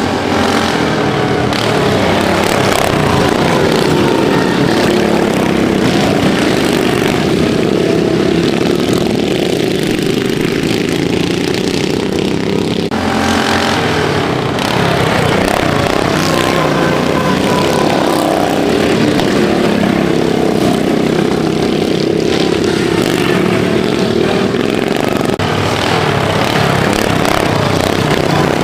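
Several racing ride-on lawnmower engines running together as they lap the track, their pitch rising and falling as they accelerate and slow.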